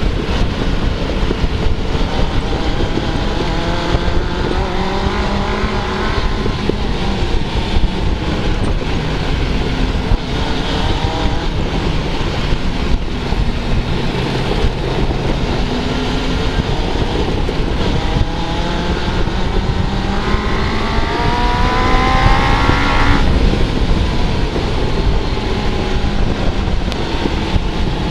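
Suzuki GSX-R600 inline-four motorcycle engine in an off-road buggy, revving up and down as it is driven, over steady loud ride noise. Late on it climbs hard to high revs, then drops off suddenly.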